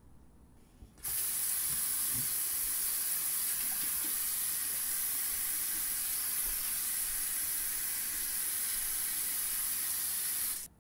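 Bathroom sink faucet running steadily, water hissing into the basin. It is turned on abruptly about a second in and shut off abruptly near the end.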